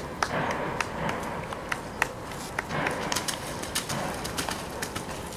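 Hooves of a horse cantering on a wet sand arena: a quick, irregular run of short thuds and clicks.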